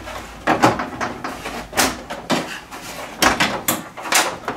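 Plastic back cover of a large LED TV being pried and lifted off, its snap-in clips coming loose in a series of sharp clicks and clacks, about six or seven in all.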